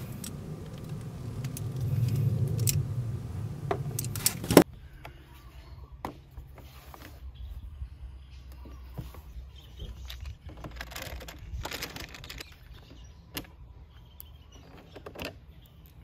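A loud low rumble with a few sharp clicks that cuts off suddenly about four and a half seconds in. After it come light clicks, rubbing and rustling as hands work at a scooter's plastic floorboard panels and rubber floor mat.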